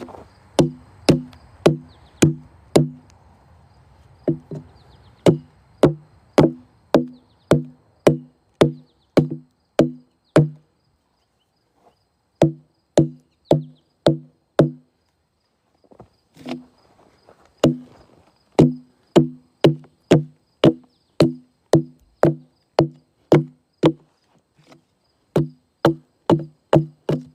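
Hatchet chopping into a log, about two blows a second, each a sharp knock with a short, low, pitched ring, in runs with brief pauses between them. The blows chip out wood between chainsaw cuts made in a waffle pattern, hollowing out a bench.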